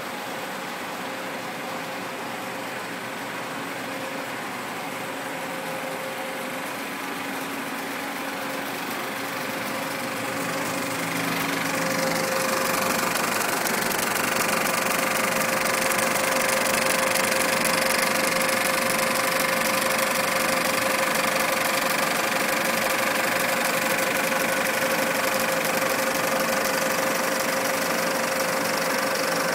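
35mm film projector running, a steady mechanical whir and clatter with a constant hum. It grows louder and brighter about eleven seconds in, then holds steady.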